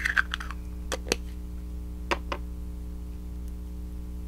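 Light clicks and taps of a small plastic Shopkins figure being handled and set down on a hard surface: a quick cluster at the start, then two pairs of taps about a second apart, over a steady low electrical hum.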